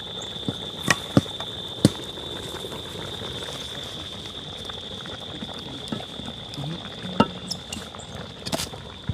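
Pot of food bubbling on the cooking fire, with a handful of sharp knocks and clinks, over a steady high-pitched insect drone.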